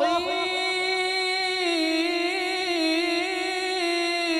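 A singer holding one long note of an Arabic devotional song praising the Prophet (sholawat), with a slight wavering in pitch.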